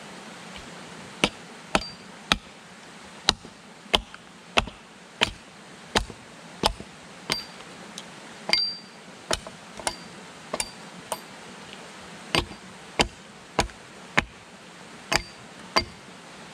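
A hatchet striking an upright wooden pole again and again: about twenty sharp knocks at roughly one every half second to second, with a couple of short pauses, several of them with a brief metallic ping.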